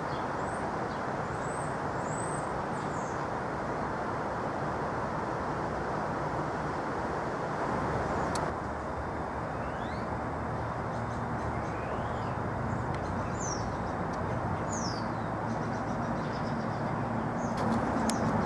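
Steady rush of distant highway traffic, with a few short bird chirps over it. About eight seconds in the sound changes to a lower, steadier hum as the chirps continue.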